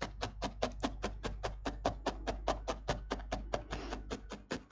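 A 40T double felting needle stabbing rapidly into wool packed in a heart-shaped metal mould on a foam pad: an even run of soft taps, about eight a second. The repeated stabbing compacts the wool into a firm heart shape inside the mould.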